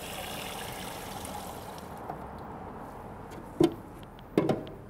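Brine pouring in a steady stream into a briner bucket over whole turkeys, the splashing tailing off about two seconds in. Near the end come two dull knocks a little under a second apart.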